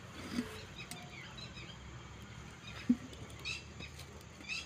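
Short high chirping calls of small animals, repeating every second or so, with one sharp knock about three seconds in, the loudest sound.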